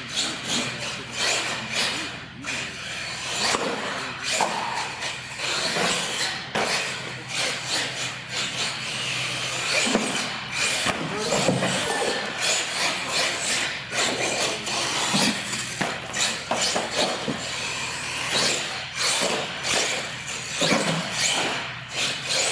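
Radio-controlled monster trucks running on a concrete floor: motors whining and revving up and down, tyres scrubbing, with repeated knocks from landings and hits on wooden ramps.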